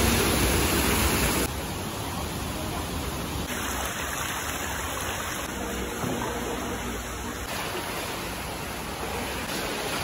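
Stream water rushing in a steady noise as it spills over a small concrete weir and flows through a corrugated steel culvert. The rush drops abruptly to a quieter level about a second and a half in and stays steady after that.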